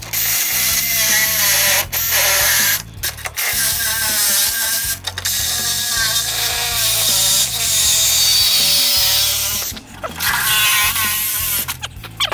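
Cordless reciprocating saw cutting through the rusted sheet-steel floor pan of a 1967 VW Beetle, run in several long bursts with brief stops between.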